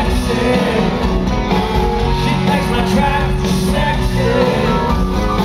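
Live country band with lead vocals playing loud and steady through a concert PA, heard from the audience in a large arena.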